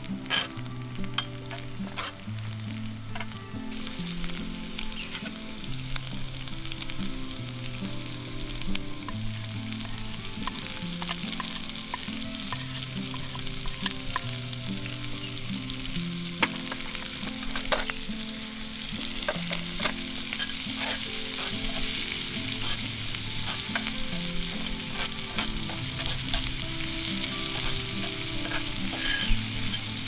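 Food sizzling as it fries in a cast iron skillet, with a metal spoon clicking and scraping against the pan as it is stirred. The sizzle gets louder from about the middle onward.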